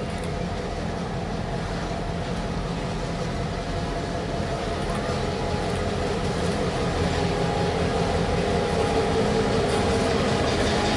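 Massachusetts Central diesel locomotive running past at low speed, its engine drone growing steadily louder as it comes up, with the rolling rumble of the covered hopper cars behind it.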